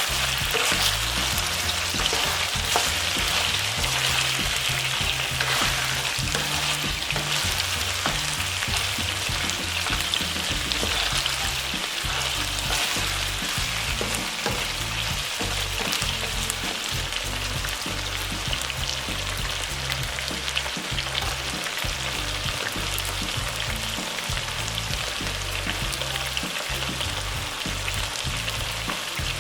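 Food frying in hot oil in a pan: a steady, crackling sizzle.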